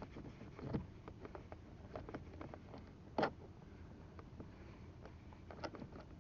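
Scattered small clicks and taps of handling and prying at a car's mirror adjustment knob, with a louder knock a little past three seconds in.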